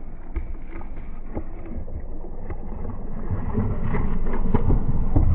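Muffled low rumble with wind on the microphone, and scattered knocks and thumps from the small boat as a big bass is fought on the line. The noise grows gradually louder toward the end.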